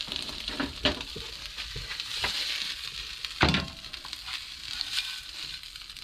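Food sizzling steadily in a frying pan, with a few sharp knocks of a cooking utensil, the loudest about three and a half seconds in.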